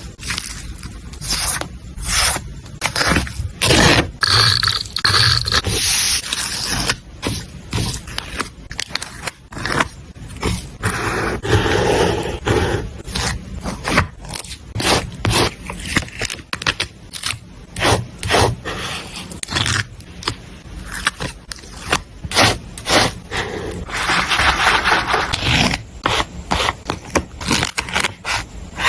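Close-up paper-crafting sounds from laying out a journal page: paper scraping and rubbing, with many short sharp clicks and crackles scattered throughout.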